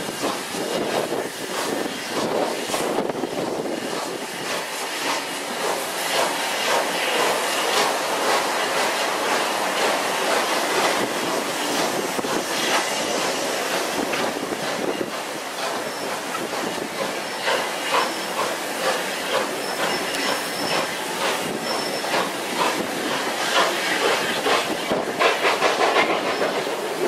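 Steam locomotive working hard as it pulls a train of coaches away, its exhaust beats sounding over a steady hiss of steam. The beats grow stronger near the end.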